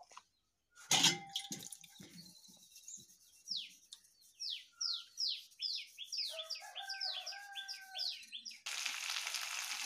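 A bird calling a run of quick, downward-sliding whistles, about two a second, over several seconds. About a second in there is a single knock with a short metallic ring. Near the end, food begins sizzling as it fries.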